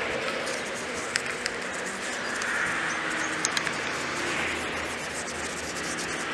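Hand rubbing or scrubbing on scooter parts, a hiss-like noise that swells and fades in slow waves, with a few light clicks about a second in and again around three and a half seconds in.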